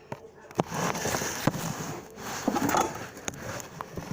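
Cubed potatoes sizzling and crackling in hot oil in a frying pan, rising about a second in and easing off near the end, with a few sharp clicks of utensils on the pan.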